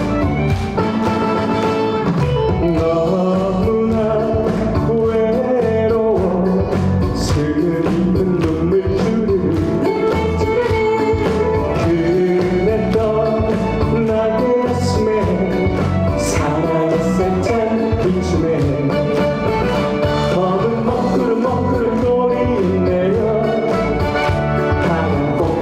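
Korean trot music from a backing track: a wavering melody line over a steady beat, playing without a break.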